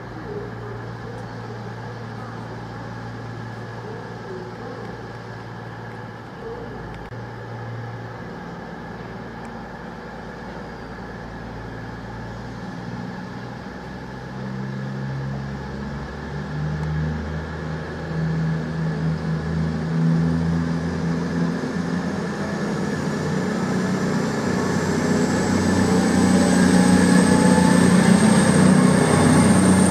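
Voyager diesel multiple unit's underfloor diesel engines, steady at first, then stepping up in pitch about halfway through as the train pulls away. The sound grows louder as it draws near, with a high whine that rises in pitch toward the end.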